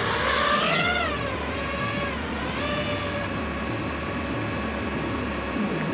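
DJI FPV drone's four motors and propellers whining in flight, a high, many-toned whine that swoops up and down in pitch in the first second or so, then holds steady.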